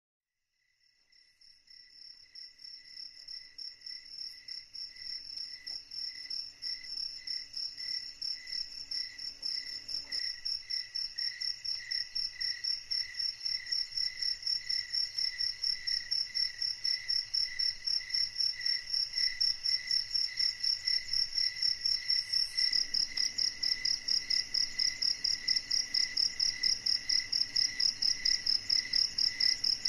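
Crickets chirping at night in a fast, even pulse that fades in over the first few seconds and then holds steady.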